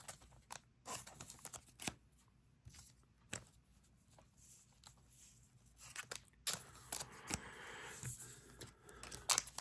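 Trading cards handled and slid against one another, with light scattered clicks, then from about six and a half seconds a foil booster-pack wrapper crinkling as it is torn open.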